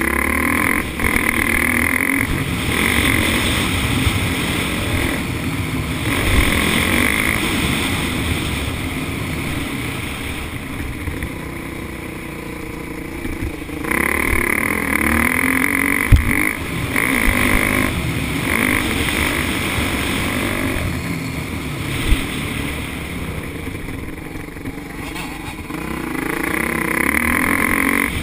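Kawasaki KX125 two-stroke motocross bike's engine revving up and down through the gears as it is ridden hard, heard from the rider's onboard camera. Two sharp thumps cut through, one a little past halfway and another a few seconds later.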